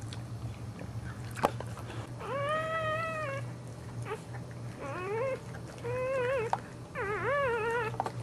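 Newborn Boxer puppy crying: four thin, meow-like squeals, the first long and level, the later ones shorter and wavering. A sharp click comes about one and a half seconds in, over a steady low hum.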